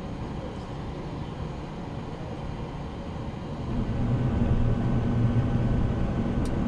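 Boeing 737 engine and airflow noise heard inside the cockpit, a steady hum that grows louder a little past halfway through.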